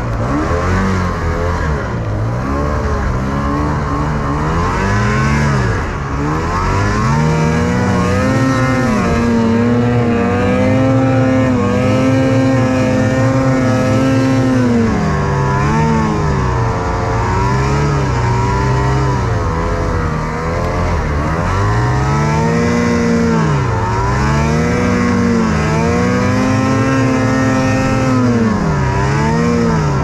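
Snowmobile engine working hard through deep powder snow, revving up and dropping back again and again, with two long stretches held at high revs.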